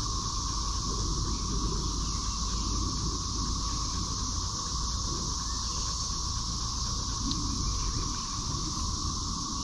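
Steady insect chorus, a constant high buzz in two bands, over a low rumble.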